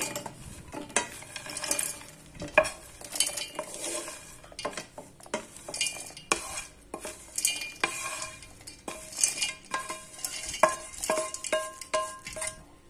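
Roasted peanuts and other chutney ingredients tipped from a pan into a stainless steel mixer-grinder jar: a run of small clattering hits against the metal, some leaving a short metallic ring.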